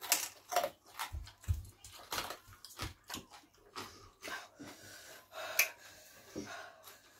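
Eating sounds: wet chewing and lip smacking, a string of irregular short smacks and clicks about one to two a second, from someone eating fufu and spicy turkey wing.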